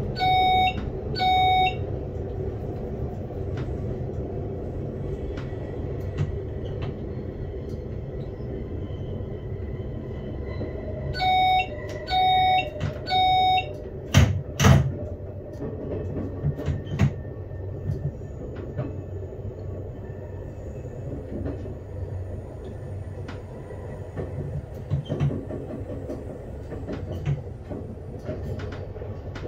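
RBDe 560 'Domino' electric multiple unit running, heard from inside the driver's cab: a steady low rumble of wheels and drive. A cab warning tone gives short beeps near the start and three more about halfway through, followed by two sharp knocks.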